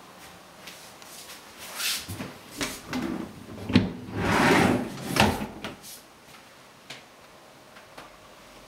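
Wood-grain closet door opened by its metal bar handle: a sharp click, a rubbing swish as the door moves, then another knock a little over a second later.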